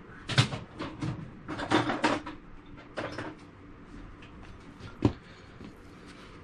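Handling noises of a small revolver and a screwdriver being worked at a bench while the cylinder crane screw is fitted: a string of clicks, scrapes and knocks, then one sharp knock about five seconds in.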